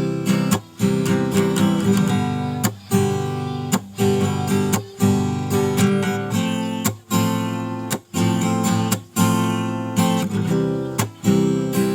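Acoustic guitar music, strummed chords in a steady rhythm of roughly one strum a second.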